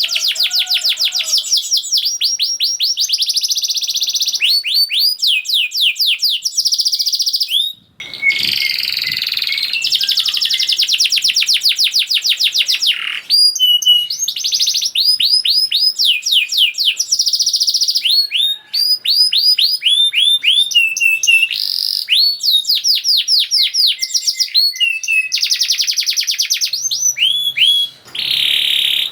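Domestic canary singing a fast, dense song of rapid trills, with rolls of quickly repeated notes changing every second or two; the sort of rapid song played to prompt quiet canaries into singing.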